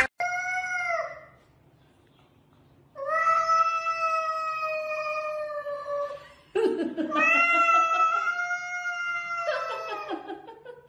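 Domestic cat yowling in three long, drawn-out calls: a short one at the start, then two lasting over three seconds each. This is the threat yowl of a cat squaring up to another cat while one swipes at the other.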